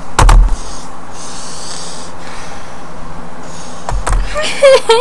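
A sharp bump on the webcam microphone, then a person breathing out heavily close to the microphone for over a second. A brief bit of voice comes near the end.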